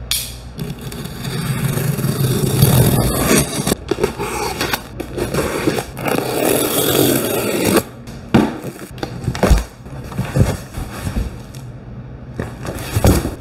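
Utility knife slicing and scraping along packing tape on a cardboard box, in long noisy strokes. After that come shorter bursts of cardboard and packing-foam handling, with a few short knocks, as the box is opened.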